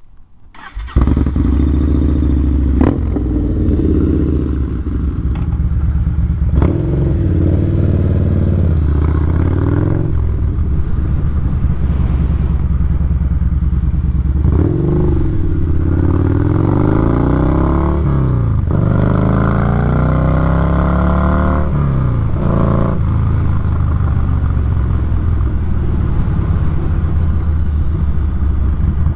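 Yamaha SCR950's air-cooled V-twin engine starting about a second in, then running steadily, its pitch rising and falling several times in the middle as the throttle is worked.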